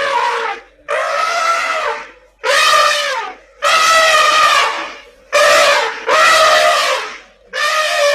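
Elephant trumpeting: a series of about six loud trumpet calls, each roughly a second long, with short pauses between them.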